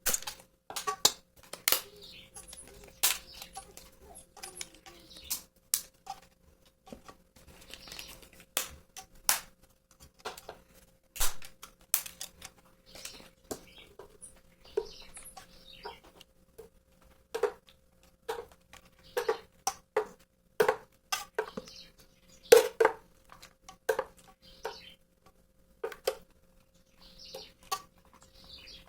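Kitchen utensils clinking and knocking against dishes and a pan while a lasagna is layered: irregular sharp clicks, some ringing briefly.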